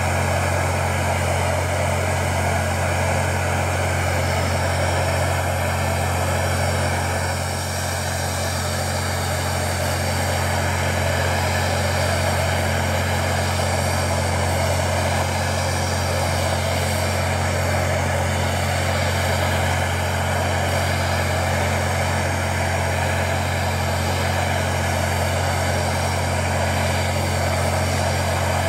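Handheld gas torch burning steadily, a constant low rumble with hiss over it.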